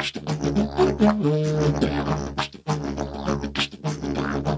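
S-shaped didgeridoo drone in C-sharp played rhythmically, with pulsing beatbox-style accents. A higher held toot comes a little over a second in, and there are short breaks for breath.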